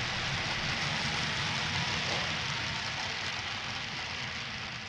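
Sound-decoder diesel engine sound of an HO-scale EMD GP9 model locomotive, a steady hiss over a low rumble, slowly fading out over the second half.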